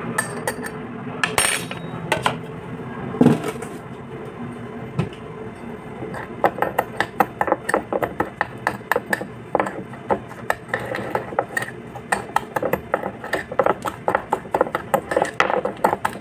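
Metal spoon stirring a thick coffee-and-sugar scrub in a small glass bowl, clinking rapidly against the glass, several clinks a second from about six seconds in. A few single louder knocks come in the first four seconds.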